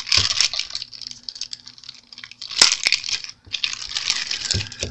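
Clear plastic packaging bag crinkling in several bursts as it is handled and rummaged through.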